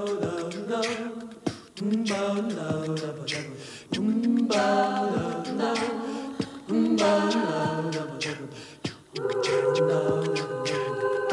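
Unaccompanied group of voices singing in phrases of about two seconds each, the last a long held chord starting about nine seconds in.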